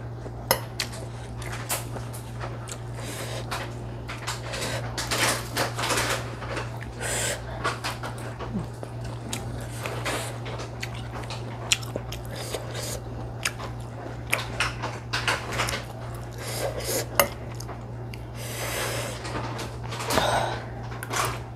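A metal fork clicking and scraping against a glass food container as noodles are forked up, with chewing picked up close by a clip-on microphone, over a steady low hum.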